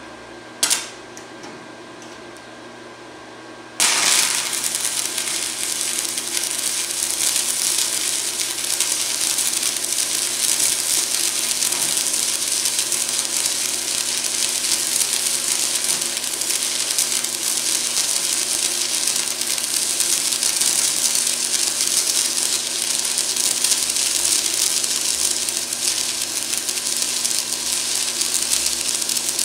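Stick-welding arc from a 3/32-inch 7014 electrode on a Forney Easy Weld 140 MP inverter welder. After one brief sharp snap about a second in, the arc strikes about four seconds in and burns with a steady crackle and hiss.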